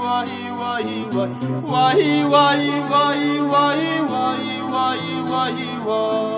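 Instrumental music: a plucked string instrument playing a bending folk melody over held low notes.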